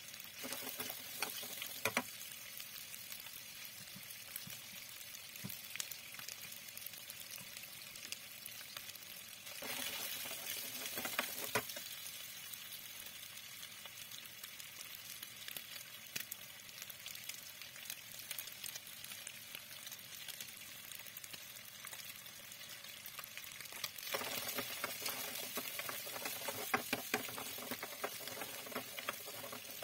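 Parboiled chicken cubes sizzling as they fry in oil in a nonstick frying pan, with a metal ladle stirring them and clicking against the pan. The sizzle swells for a couple of seconds about ten seconds in and again over the last six seconds.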